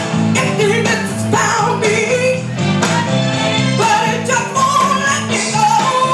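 A woman singing a soul song live into a microphone over instrumental accompaniment, with her melody held and wavering over a moving bass line.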